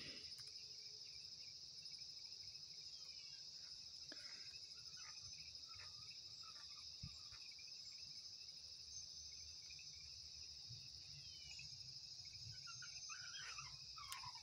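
Faint, steady, high-pitched trill of night insects such as crickets, with scattered faint chirps over it.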